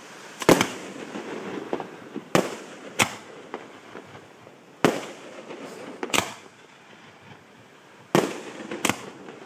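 Fireworks display: aerial shells bursting in about seven sharp bangs at irregular intervals, each trailing off in an echoing tail. The loudest bang comes about half a second in.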